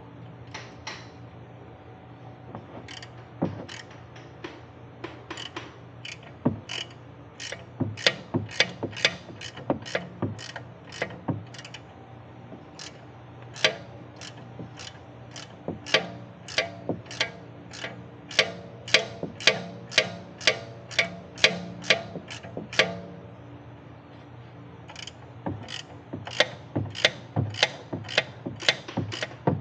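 Hand ratchet wrench clicking, swung in quick strokes about twice a second, in three runs with short pauses between them.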